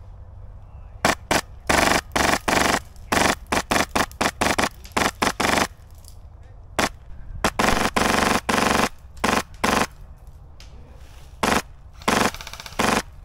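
Airsoft guns firing: rapid single shots and short full-auto bursts starting about a second in, a pause in the middle, then a longer burst and more shots near the end.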